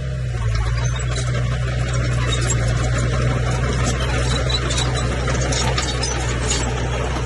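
Komatsu bulldozer's diesel engine running steadily with a deep drone, with scattered short high clinks and squeaks from the working machine.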